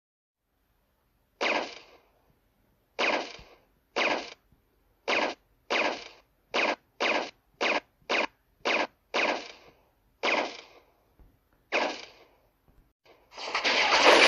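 Film gunshot sound effects: about a dozen single sharp shots with short tails, fired one at a time at uneven intervals. Near the end a loud continuous burst of noise sets in.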